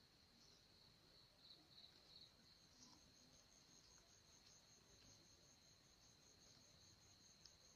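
Faint crickets chirring: a steady high trill, joined about a third of the way in by a second, higher trill pulsing about five times a second.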